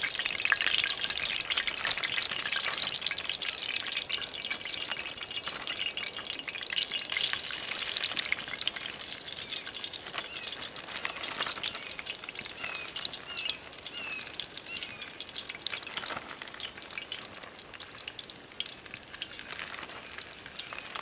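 Flour-dredged pigeon quarters frying in hot sunflower oil in a frying pan, a steady crackling sizzle full of tiny pops. It is loudest about seven seconds in as more pieces go in, then slowly settles.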